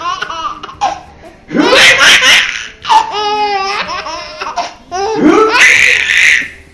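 A baby laughing in three long bouts of quick, repeated laughs, with short pauses between them.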